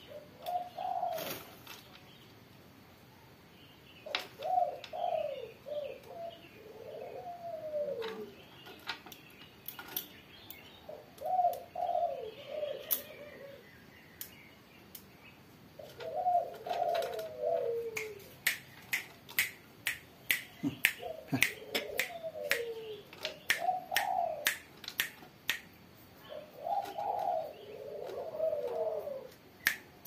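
Spotted dove (tekukur) cooing in repeated phrases of several low notes, a phrase every few seconds. Sharp clicks and taps come often in the second half.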